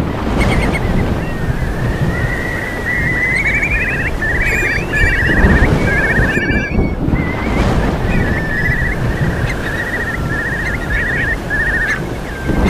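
Storm sound effect: a steady rush of rain and wind with a low rumble, with short high chirping trills repeating over it.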